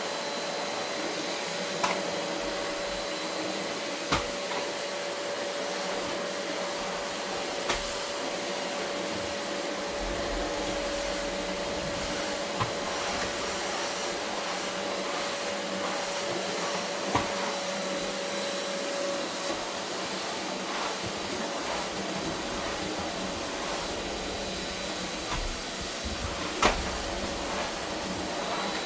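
Vacuum cleaner running steadily on carpet, a constant hum with a steady whine, broken by a few short knocks spread through.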